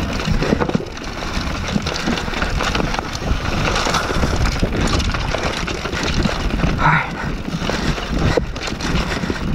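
Mountain bike descending a rough dirt trail over rocks and roots: continuous rumble of tyres on dirt, with frequent knocks and clatter from the bike hitting rocks. Wind buffets the camera microphone.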